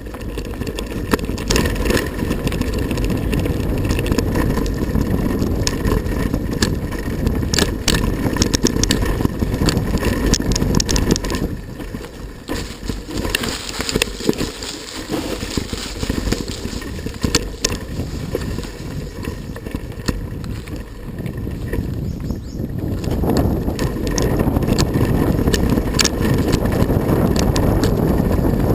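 Riding a bicycle over a rough dirt trail, with steady wind buffeting on the microphone, tyre rumble, and frequent rattles and clicks from the bike.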